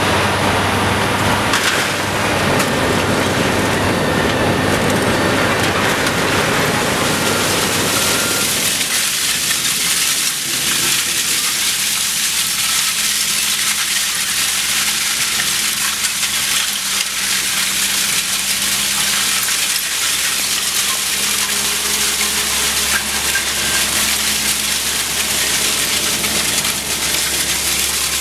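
Heavy machinery at a scrap metal shredder plant, a dense grinding clatter. About nine seconds in it changes abruptly to a steady hiss and rattle of shredded metal pieces pouring off a conveyor stacker onto a pile, over a low steady motor hum.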